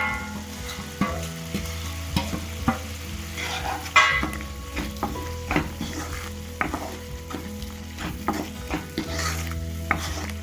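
A spoon stirring and scraping a thick spinach-and-spice purée in a pan on the heat, knocking and scraping against the pan again and again with the loudest knock about four seconds in, the purée sizzling.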